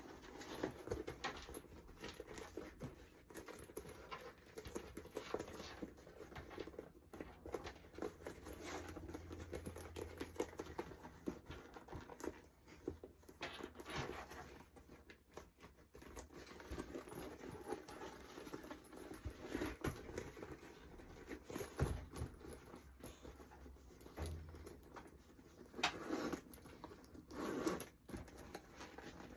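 Natural leather bag being worked inside out by hand: the leather creaks and rustles continuously in irregular crackles, with a few louder creaks near the end.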